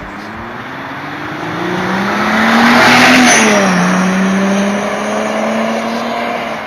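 A car driving past: its engine note grows louder and rises as it approaches, then drops in pitch as it passes about three seconds in. A faint high whistle falls in pitch at the same moment.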